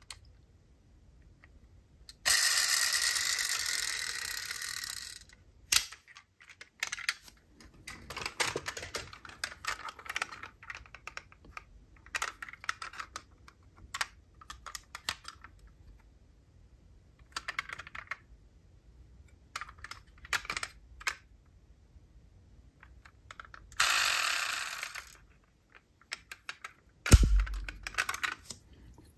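Die-cast toy cars being handled: scattered small clicks and clinks, two longer rushing sounds that fade out over a couple of seconds, and a heavy thump near the end.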